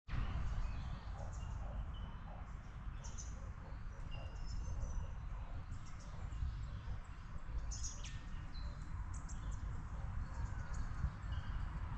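Birds chirping and calling, many short high notes scattered throughout, over a steady low rumble.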